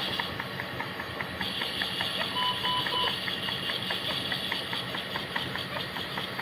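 Steady hiss and hum of NICU equipment with rapid, evenly spaced ticking, and a short broken electronic beep about two and a half seconds in.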